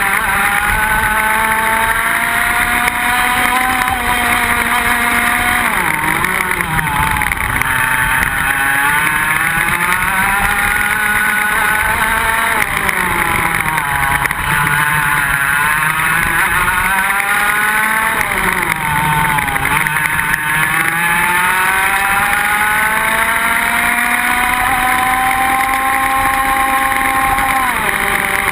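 IAME X30 125cc two-stroke kart engine at racing speed. Its revs climb on the straights and drop sharply into the corners several times, then rise again.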